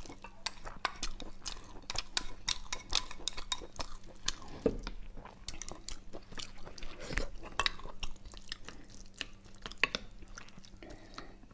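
Chopsticks and a plastic spoon clicking and scraping against a porcelain bowl as purple rice is pushed into beef-tendon stew and stirred in: irregular small taps, several a second.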